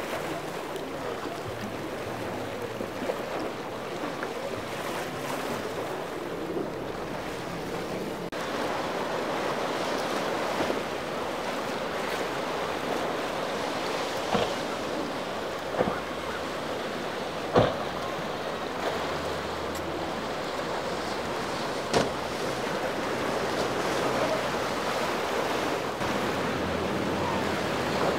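Rough inlet water and wind: a steady wash of waves, broken by a handful of sharp thumps in the middle.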